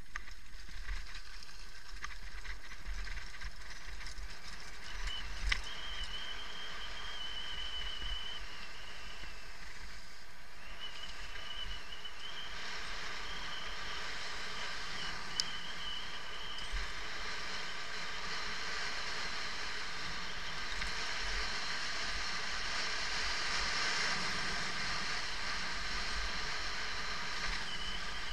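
Mountain bike coasting fast down a paved lane: steady tyre hum with gusty wind on the microphone and a couple of sharp knocks from bumps. A thin high whine comes and goes from about five seconds in to about sixteen.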